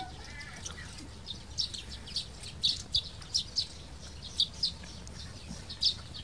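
Small birds chirping: short, sharp, high calls coming in irregular clusters.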